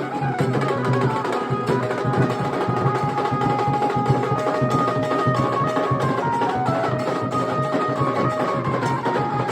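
Nashik dhol band music: fast, dense dhol drumming under a melody of long held notes that step up and down, played on a benjo (electric Indian banjo).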